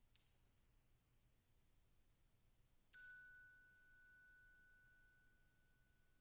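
Crotales struck softly twice, about three seconds apart: first a high, bell-like B that rings and fades, then a second strike that sounds the B again together with a lower pitch that keeps ringing.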